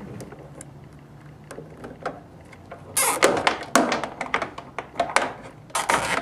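Nylon zip tie being pulled tight through its ratchet around plastic drip tubing and a bracket: a rapid run of sharp clicks about three seconds in, and another short run near the end.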